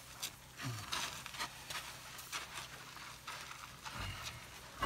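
African bush elephants walking past close by on a dirt road: irregular soft footfalls and rustling. There is a low thud about four seconds in and a louder scuff at the very end.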